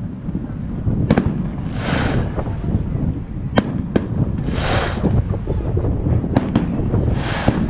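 Aerial firework shells bursting over a continuous low rumble: several sharp bangs, some in quick pairs, and three short rushes of hissing crackle.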